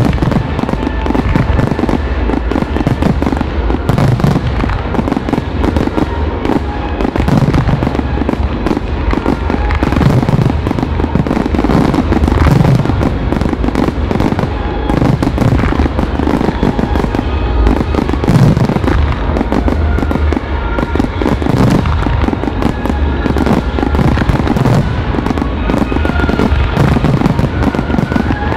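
Fireworks finale: a dense, continuous barrage of shell launches and aerial bursts with no let-up.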